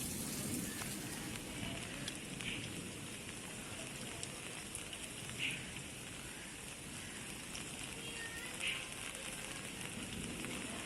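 Steady rain falling in a summer shower, an even hiss, with three short higher-pitched sounds standing out about every three seconds.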